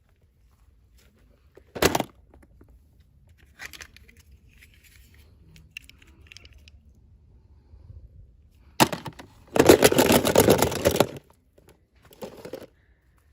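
Toy packaging being torn open by hand: a short rip about two seconds in, faint rustling, then a longer tear lasting about a second and a half and a shorter one near the end.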